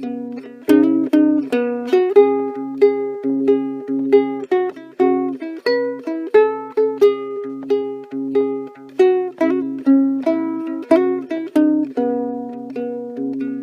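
Instrumental ukulele music: a picked melody of quick plucked notes, each ringing and fading, over a steady lower accompaniment.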